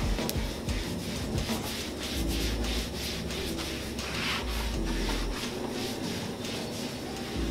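Cloth towel rubbing back and forth over the oiled steel top of a Blackstone griddle in repeated wiping strokes, spreading a thin coat of oil for seasoning.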